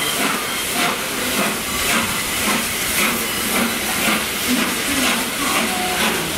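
Three-cylinder Peppercorn A1 Pacific steam locomotive working slowly under steam: steady hissing steam with even exhaust beats, a little more than one a second.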